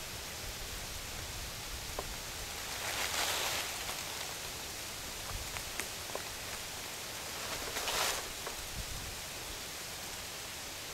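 Dry leaves rustling in two short bursts, about three seconds in and again near eight seconds, over a steady hiss, with a few faint clicks in between.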